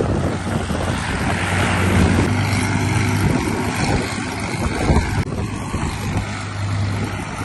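Light aircraft's propeller engine running with a steady low drone, with wind buffeting the microphone.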